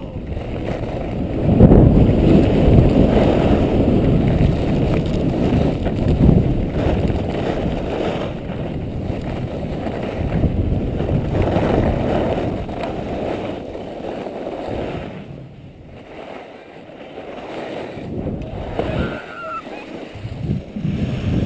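Wind rushing over an action camera's microphone together with skis scraping on packed snow during a downhill run. The rush is loudest for the first two-thirds, then falls away as the skier slows to a stop, and a brief high voice is heard near the end.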